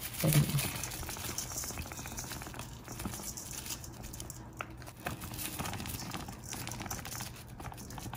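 Crispy Fry breading mix being shaken from its plastic packet onto meat in a stainless steel bowl: a faint, steady patter of falling powder with crinkling of the packet. A brief low thump right at the start.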